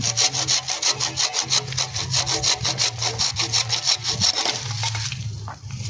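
Hand saw cutting through a mature cassava stem in fast, even back-and-forth strokes. The sawing stops a little more than a second before the end.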